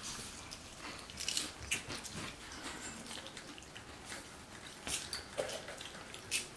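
Crunchy broccoli curl snacks being bitten and chewed: scattered, irregular soft crunches.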